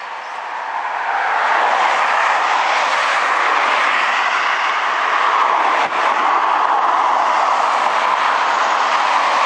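Steady road traffic: tyre and engine noise of cars passing close by, swelling over the first second or so, with a single short click about six seconds in.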